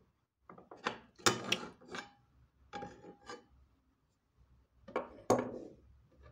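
Metal parts of an old Aux Mines de Suède cast-iron hand plane being taken apart by hand: clicks and metal-on-metal scrapes as the lever cap is worked loose and lifted out, with a short ringing tone about three seconds in. Near the end come a few knocks as parts are laid on the wooden bench.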